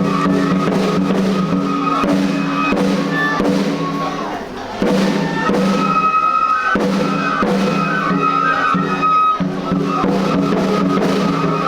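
Japanese festival music for a lion dance: high held notes like a bamboo flute over steady drum beats, with a short drop about four and a half seconds in.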